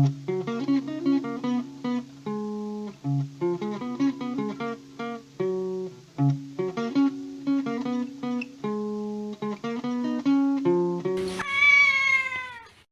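Short plucked-guitar tune of quick separate notes, followed near the end by one long meow that falls in pitch.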